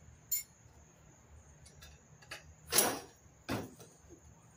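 A sharp click, then two louder clunks about three and three and a half seconds in, as a canopy support strut of an E-Z-GO golf cart is worked loose and swung out of place.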